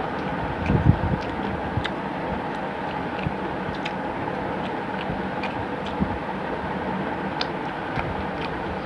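A person eating rice and mutton curry by hand: small, irregular wet clicks of chewing and lip-smacking, with fingers working the food on a steel plate, over a steady hiss. A louder knock or scrape comes about a second in.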